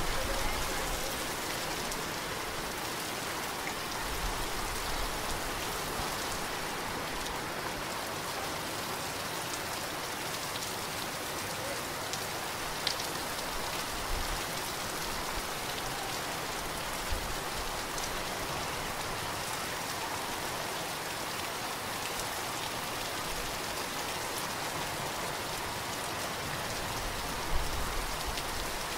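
Heavy rain falling steadily in a dense, even hiss, with a few louder single drops that tick out now and then.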